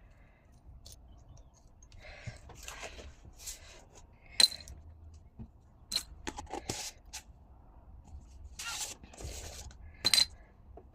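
Pieces of scrap glass being handled: short scrapes and several sharp, ringing chinks as glass knocks against glass, the loudest about four seconds in and again about ten seconds in.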